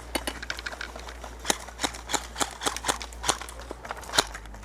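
Airsoft guns firing scattered single shots: irregular sharp cracks, a few a second, with one louder crack about four seconds in.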